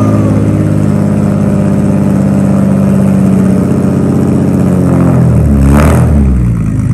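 Datsun 280Z inline-six running loud through a freshly welded straight-pipe exhaust with a small resonator, holding a steady idle, then one quick throttle blip about five and a half seconds in that rises and drops back to idle.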